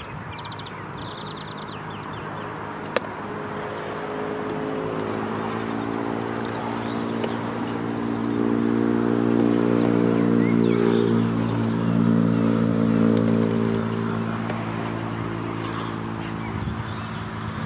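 A motor vehicle's engine passing by, its steady hum growing louder over several seconds to a peak about two-thirds of the way through, then easing off. Birds chirp faintly, and there is a single sharp click about three seconds in.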